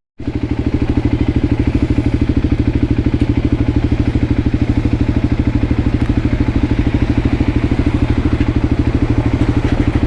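Voge 300 Rally's single-cylinder engine idling steadily, an even rapid thumping of about ten beats a second, starting just after a momentary cut to silence.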